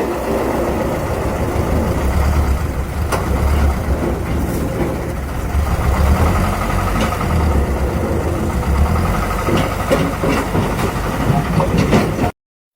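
Heavy machinery's diesel engine running with a steady low rumble and a few sharp knocks, cutting off suddenly near the end.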